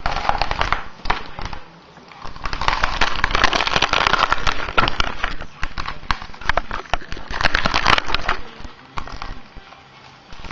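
Plastic sheets and metal frame of a dismantled laptop LCD panel crackling and crinkling as they are handled, in three spells: through the first second or so, a longer stretch from about two and a half to five and a half seconds in, and again around seven to eight seconds in.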